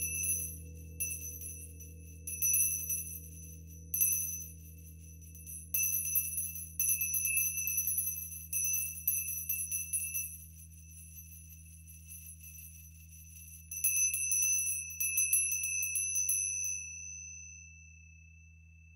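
Small metal hand bell shaken in several bursts, its clapper striking rapidly and the bell ringing at a high, bright pitch, with a longer run of shaking in the middle; it is left to ring out near the end. Beneath it a low hum, the lingering ring of the gong, fades away.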